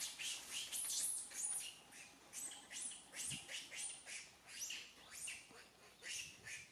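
Small birds chirping repeatedly, about two short high chirps a second, each falling in pitch.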